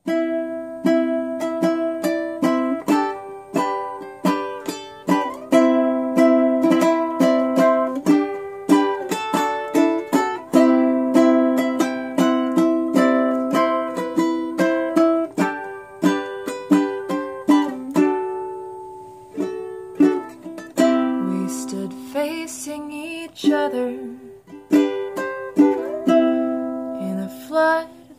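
Acoustic ukulele strummed in repeated chords, each strum ringing out before the next, playing a slow song accompaniment.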